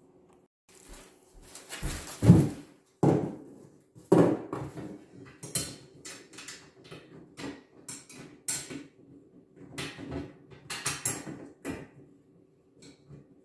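Steel parts being handled and fitted together: a string of irregular clanks, knocks and rattles, loudest in the first few seconds, over a faint steady hum.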